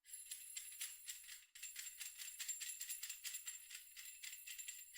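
Faint background music: a quick, even shaker-like rhythm of soft ticks with faint high sustained tones.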